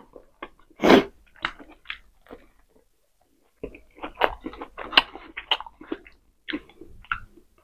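Close-miked eating: biting and chewing pork steak and sausage, with wet mouth clicks and crackles in irregular bursts. There is a short pause in the middle.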